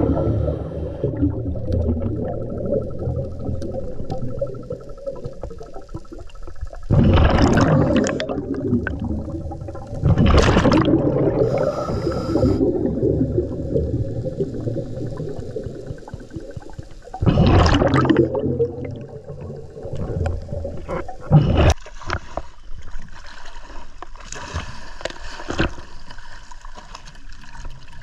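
Underwater sound: a steady low rumble broken by three loud rushes of bubbling, about seven, ten and seventeen seconds in.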